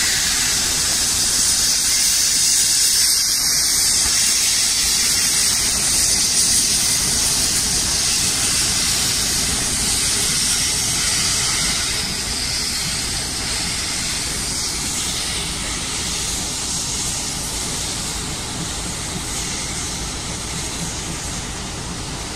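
Jubilee class steam locomotive 45596 Bahamas pulling away with its train, giving off a loud, steady hiss of steam that slowly fades as it draws off.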